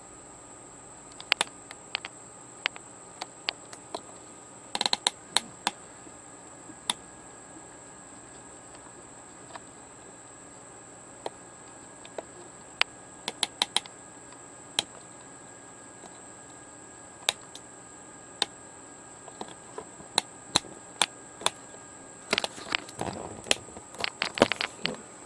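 Irregular sharp clicks and taps of hands handling parts and tools inside an opened LCD TV, scattered through and busier near the end, over a steady faint high-pitched whine.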